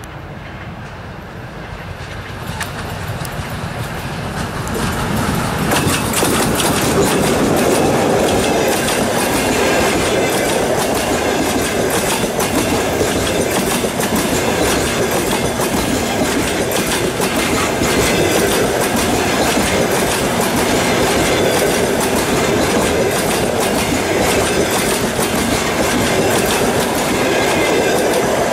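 Fast double-deck passenger train hauled by an EP20 electric locomotive passing close by, growing louder over the first several seconds, then a steady loud rumble with rapid clickety-clack of wheels over rail joints.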